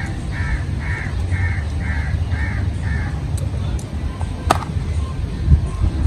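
A crow cawing, a run of seven calls at about two a second, over a steady low rumble. A single sharp click about four and a half seconds in.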